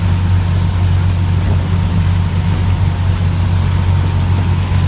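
Motorboat engine running steadily underway: an even, low drone, with a steady rush of water and wind noise over it.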